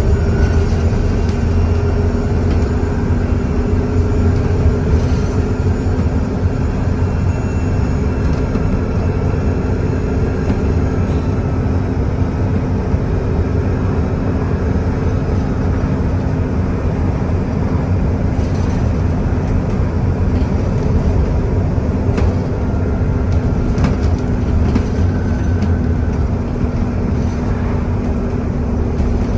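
Alexander Dennis Enviro400 double-decker bus's diesel engine running steadily under way, a deep, even drone with a faint thin turbocharger whistle above it.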